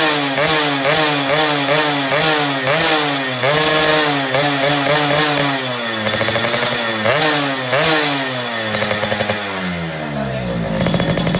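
Yamaha F1ZR's two-stroke single-cylinder engine revved through a Creampie aftermarket racing exhaust, in quick throttle blips about twice a second with a longer rev about three and a half seconds in. Near the end the revs fall away and it settles to idle.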